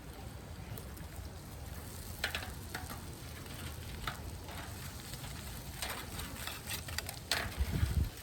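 Food frying in a pan with a steady sizzle, broken by a few short clicks and a louder low bump near the end.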